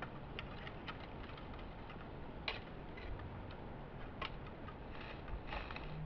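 Quiet woodland background with a steady hiss and scattered faint clicks and ticks at irregular intervals. The sharpest click comes about two and a half seconds in, and others follow near four and five and a half seconds.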